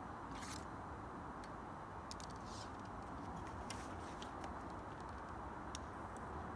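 Faint steady outdoor background hum with about eight scattered light clicks and short rustles, irregularly spaced, from archery gear being handled: arrows pulled from a hip quiver and a bow being readied.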